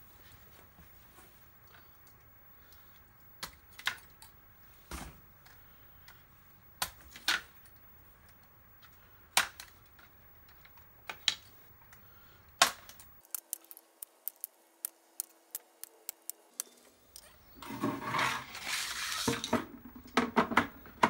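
Utility knife cutting through the holding tabs of a CNC-cut plastic sheet: a scattered series of sharp snaps and clicks as the tabs give and parts are freed, with a busier stretch of plastic pieces being handled near the end.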